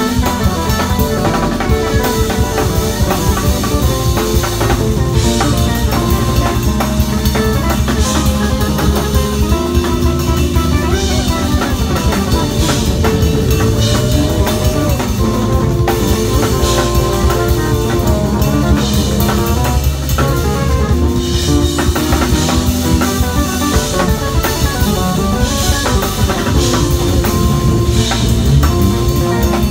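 Live band music: an electric bass guitar playing over a drum kit with cymbals, no singing.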